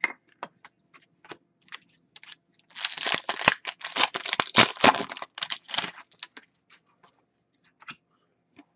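Hockey trading cards and their wrapper being handled: light clicks and taps, with a few seconds of dense crinkling in the middle.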